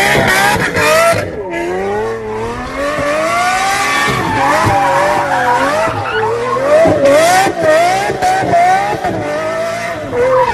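Lamborghini drifting: tyres squealing in a wavering pitch that keeps rising and falling, over the running engine.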